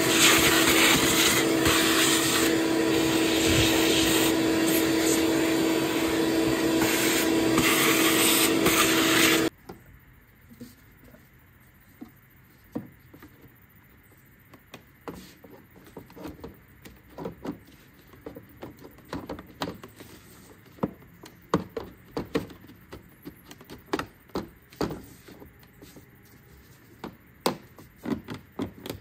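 Vacuum cleaner running with a steady hum while it cleans out a car's engine compartment, switched off suddenly about nine and a half seconds in. After that come scattered light clicks and knocks of things being handled.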